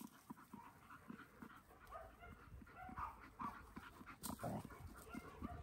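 Several dogs playing and tussling together, heard faintly: scattered short, quiet vocal sounds and scuffling.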